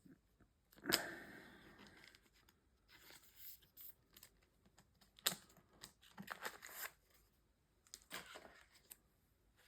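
Trading cards and plastic binder pages being handled: a sharp snap about a second in that trails off into rustling, then several more short spells of papery, plasticky rustling as cards are slid into place.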